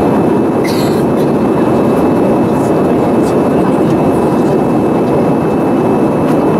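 Steady roar of an easyJet Airbus A320-family jet in flight, heard inside the cabin from a window seat: engine and airflow noise at an even level. A brief high rustle comes about half a second in.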